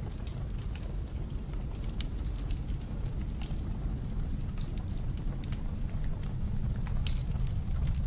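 Wood fire crackling, with sharp, irregular pops over a steady low rumble of blizzard wind.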